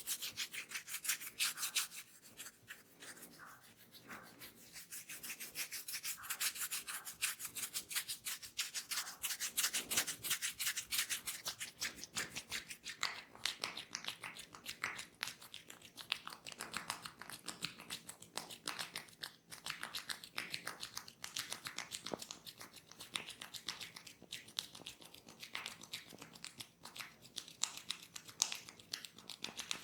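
Hands rubbing and scrubbing hair and scalp in a head massage, a steady stream of quick, close-up rubbing strokes. A couple of seconds in it goes quieter for a short while.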